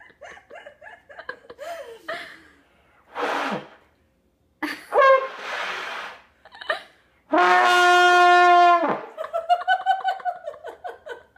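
Trombone blown by a beginner: a breathy blast, a short note that breaks into rushing air, then one clear held note of about a second and a half that drops in pitch as it stops. Laughter follows.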